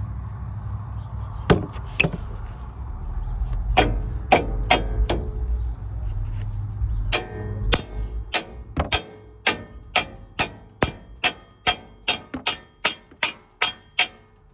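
Hammer blows ringing on the steel front suspension of a 2012 Ford F-250. A few scattered strikes come first, then about halfway through a steady run of about twenty strikes, roughly three a second.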